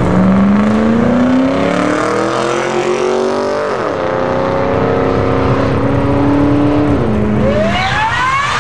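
Car engine revving hard through a smoky burnout, its note climbing for several seconds, dipping sharply about four seconds in, holding, dropping again near seven seconds, then climbing steeply at the end, over the rushing noise of spinning tyres.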